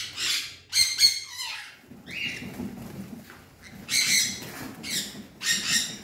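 Blue-and-gold macaw squawking: about six loud, rough squawks at uneven intervals.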